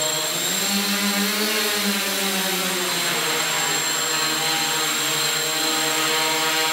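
AeroQuad quadcopter's four electric motors and propellers whining at high power while trying to lift a seated person's weight. The pitch swells and bends about a second in, then holds steady.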